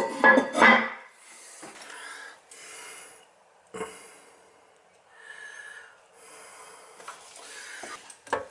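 Toilet flushing: a loud gurgling rush in the first second, then quieter, uneven water noise.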